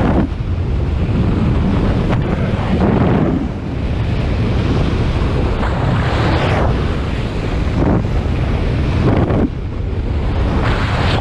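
Wind rushing over the camera microphone in fast paraglider flight: a loud, low buffeting, with hissing surges every few seconds.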